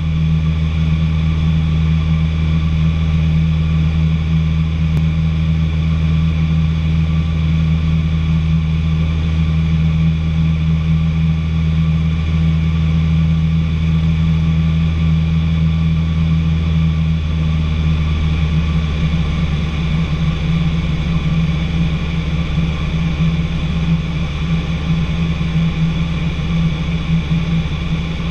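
Light training aircraft's engine and propeller running steadily in flight, heard from inside the cockpit as a loud, even drone.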